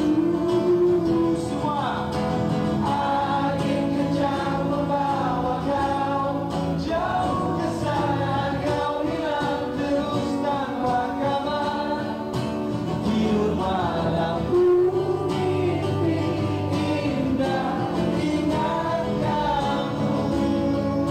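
Live acoustic pop song: a male voice singing over acoustic guitar.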